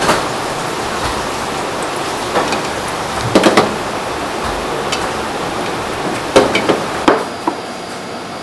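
Water boiling in a stainless steel dumpling cooker, a steady rushing hiss, with clinks and knocks of a wire mesh strainer and ceramic plates being handled; a cluster of sharp knocks comes about three and a half seconds in and another between six and seven seconds in.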